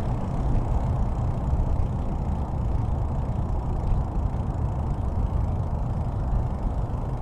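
Steady low rumble of a bicycle ride: tyres rolling over a concrete path, with wind buffeting the camera's microphone.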